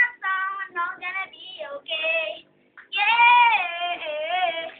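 A boy singing loudly without accompaniment, in short phrases and then a long drawn-out note about three seconds in that wavers in pitch as it ends.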